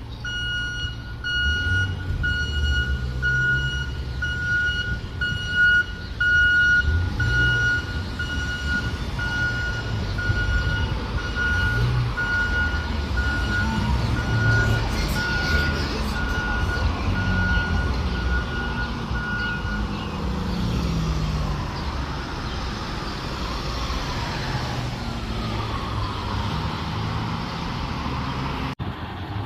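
Fire truck backing up: its backup alarm gives a steady run of beeps over the engine running underneath. The beeping stops about two-thirds of the way through and the engine keeps running.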